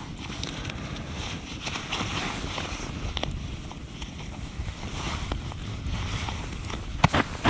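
Wind buffeting the microphone with a steady low rumble, over faint rustling of clothing and a few scattered crackles from a small campfire. A few sharp, louder snaps come near the end.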